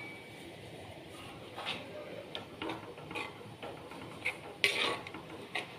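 Steel spoon stirring fish curry in a clay pot: scattered light clinks and scrapes against the pot, a louder one near the end.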